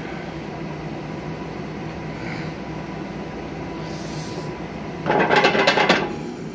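Steady droning hum of the gym's air handling, with a couple of faint hissing breaths, broken about five seconds in by a loud rasping, rattling burst lasting about a second.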